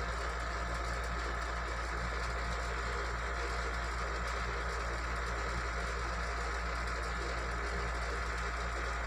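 A steady, unchanging low mechanical hum, like a motor running, with no distinct clicks or knocks.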